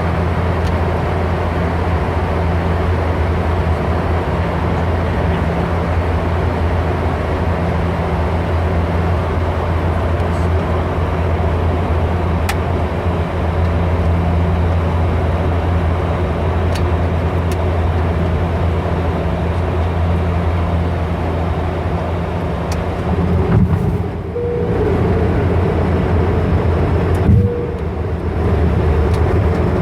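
Dash 8 Q400 turboprop on final approach: the steady low drone of its two engines and six-bladed propellers, with a few faint clicks. Twice near the end the sound jolts briefly, and just before the end the low drone shifts slightly in pitch.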